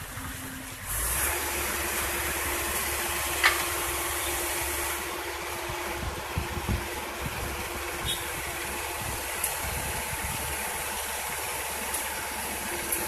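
A tracked excavator's diesel engine running. About a second in it steps up from a low idle to a louder, steady higher-revving run. One sharp metallic clank comes a few seconds later.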